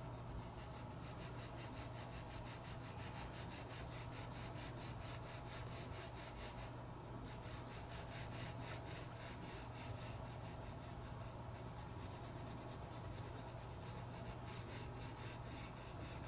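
Soft 8B graphite pencil shading on drawing paper: faint, quick, repeated rubbing strokes as the dark cast shadow is built up. A steady low hum runs underneath.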